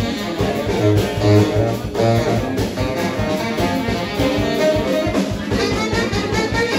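Live jazz band playing: a saxophone lead over electric guitar and a low bass line, with strong bass notes about a second in.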